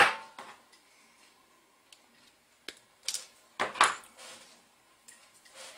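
A sharp snap at the start as a nylon zip tie's tail is snipped off, then a few light plastic clicks and clatters about three to four seconds in as a small plastic gear motor is handled.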